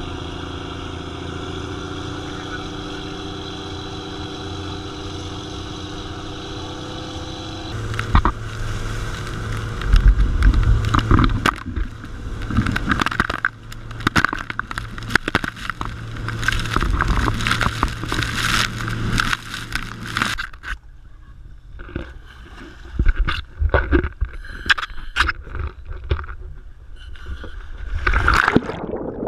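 Dive boat's engine running steadily. About eight seconds in it changes to water rushing and splashing along the hull at speed over the engine's low hum. Later the hum is gone and only choppy splashing of water at the surface is left.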